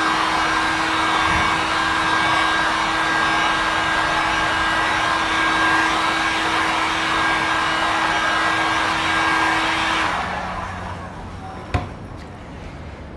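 Handheld electric heat gun blowing steadily with a fan hum, force-drying freshly applied clear-coat touch-up paint. About ten seconds in it stops and winds down, followed by a single click.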